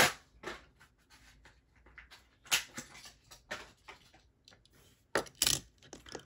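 Handling noise from a small Matchbox die-cast car being picked up and turned over in the fingers: scattered light clicks and rubs, the loudest about five seconds in.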